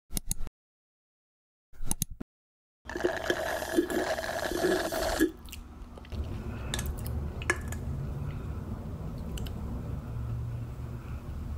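Close-miked fingertips and nails scratching through short, flaky hair on a scalp: a continuous low rustling crackle with occasional sharp clicks. It is preceded by a few short clicks and a brief loud sound effect of about two and a half seconds.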